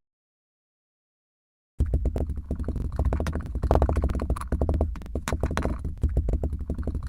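Silence for almost two seconds, then a dense, rapid crackling and clicking with a deep rumble underneath.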